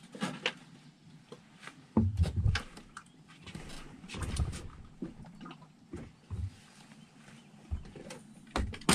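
A fishing rod and reel being handled on a boat while a hooked catfish is reeled in: scattered sharp clicks and knocks near the start and again just before the end, with several short low rumbles in between, the loudest about two seconds in.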